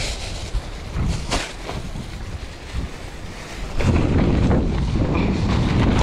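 Strong wind buffeting the microphone, a low rumbling gust that grows stronger about four seconds in, with a few brief knocks in the first second and a half.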